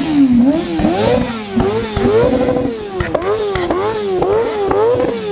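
Motorcycle engine revved hard at a standstill over and over, its pitch climbing and dropping roughly every half second, with one longer held peak and sharp cracks as the revs fall.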